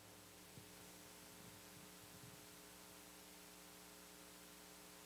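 Near silence with a faint steady electrical hum under light hiss.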